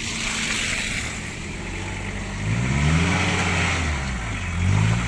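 Car engine revved up and eased off twice on a snowy road, its pitch rising and falling, over a steady hiss.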